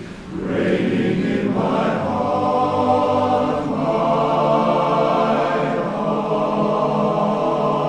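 Barbershop chorus singing a cappella in close harmony: a brief breath-break at the start, then full chords held and sustained.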